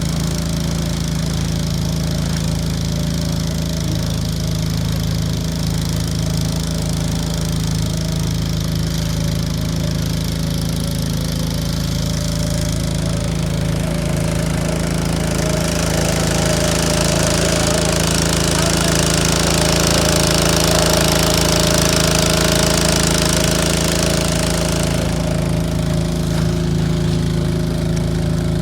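An engine running steadily with a constant hum and no change in speed. A high hiss joins about twelve seconds in, grows, then drops away about twenty-five seconds in.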